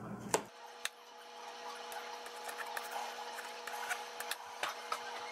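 Butter knife slicing a banana on a plastic cutting board: irregular light taps and clicks of the blade against the board, over a faint steady hum.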